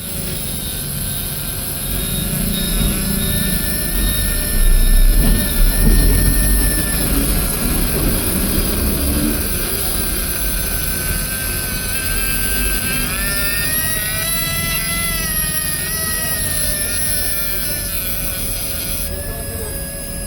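A small motor or blower whirring steadily with a high whine, its pitch rising for a few seconds past the middle and settling back, with a heavier low rumble for a few seconds near the start.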